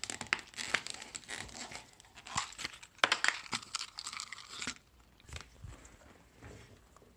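Plastic keyboard housing and back plate being handled and fitted together: irregular clicks, knocks and scraping, dying down after about five seconds.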